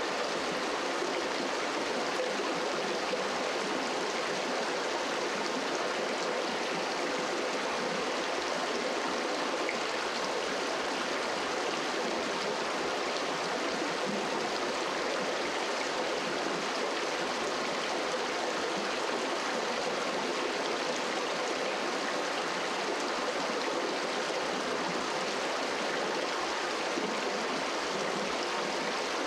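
Small rocky stream running: a steady, even rush of flowing water.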